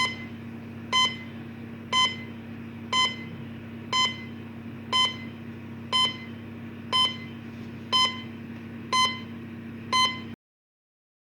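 Electronic beep sound effect of the heart-monitor or bomb-timer kind: a short, high beep exactly once a second, eleven times, over a steady low hum. It all cuts off abruptly near the end.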